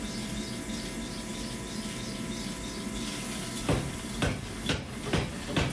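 Power hammer striking a hot mosaic damascus billet with light blows, about two a second, on the billet's first forge-welding heat. The blows start a little over halfway through, over a steady machinery hum.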